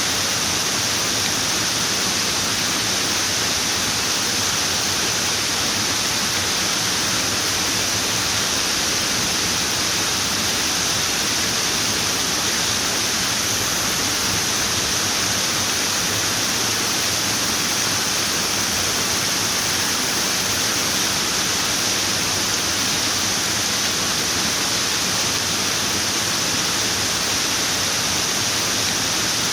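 Running water rushing steadily, an even hiss-like wash with no breaks or splashes standing out.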